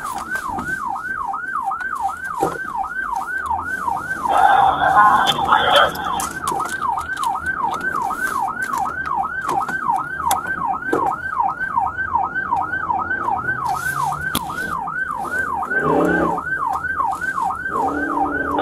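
Emergency vehicle siren in a fast yelp, its pitch sweeping up and down about three times a second without a break. A louder, rougher sound joins it briefly about four to six seconds in.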